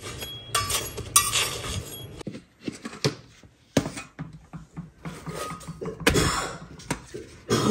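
A person coughing in several short bursts, spread out with pauses between them: the dry cough of someone ill.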